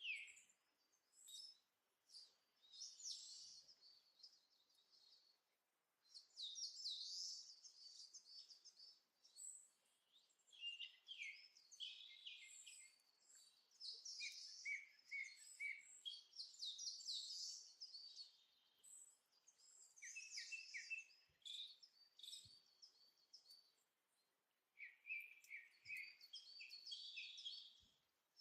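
Faint birdsong: bursts of high chirping and twittering, with short pauses between them.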